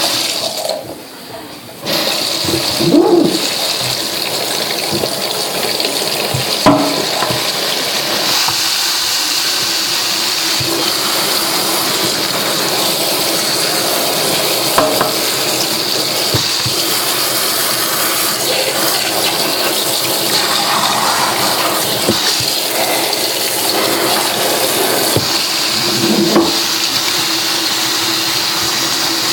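Water running steadily from a tap as plush toys are rinsed under it; it starts about two seconds in, with a few short knocks and splashes along the way.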